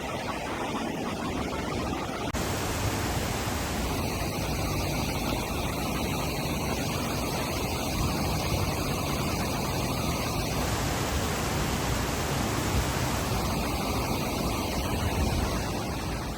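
Steady rushing of flowing river water, an even hiss with no distinct events; the sound shifts abruptly about two seconds in.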